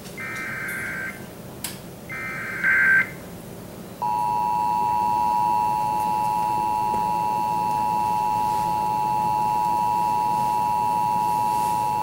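Emergency Alert System test alert from a Sage EAS ENDEC. First come two one-second bursts of the SAME header data tones, a second apart. About four seconds in, the steady two-tone attention signal (853 and 960 Hz) starts, sounds for about eight seconds, and stops at the end.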